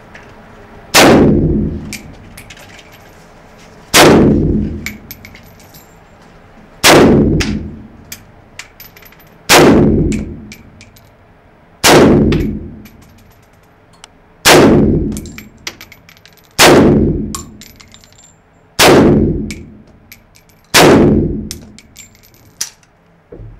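AK-pattern rifle fired in slow single shots, nine in all, about one every two to three seconds, each shot echoing and dying away in the enclosed indoor range.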